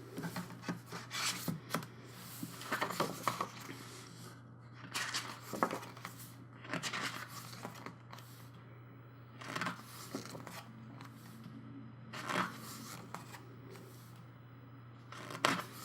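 Paper, card and plastic of a CD album package being handled: a series of short rustles, scrapes and slides, each lasting a fraction of a second to about a second, over a steady low hum.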